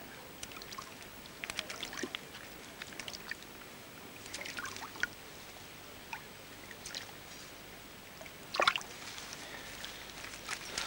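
Wet keepnet being emptied of its catch: irregular splashes and drips of water, with one louder splash a little past eight seconds in.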